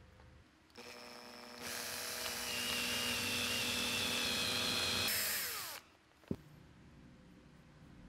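Cordless drill driving a thread tap into an aluminium part: the motor starts about a second in, runs with a steady whine for about four seconds, then winds down with a falling pitch. A single sharp click follows shortly after.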